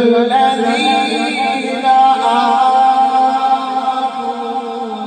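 A man's voice reciting the Quran (tilawat) in melodic style, unaccompanied and amplified through a microphone, drawing out one long note with small turns in pitch.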